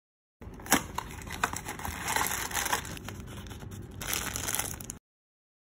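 Thin clear plastic packaging bag crinkling as it is handled and opened, with a sharp click about a second in and louder crinkles near the middle and end. It cuts off suddenly.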